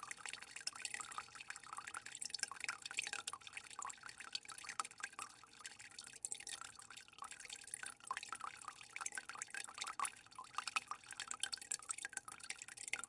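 Water trickling and dripping, a continuous irregular patter of small drops and splashes.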